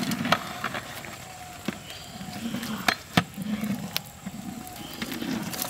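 Cooking over a wood fire, with a long ladle in a big pot of curry: a few sharp clicks and knocks, scattered and strongest about three seconds in, over a low, uneven rumble.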